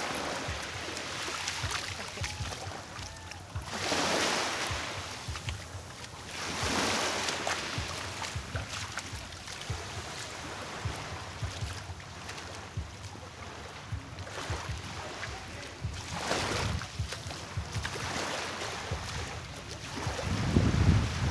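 Seaside wind and small waves: a steady rush of noise that swells louder three times, with wind buffeting the microphone near the end.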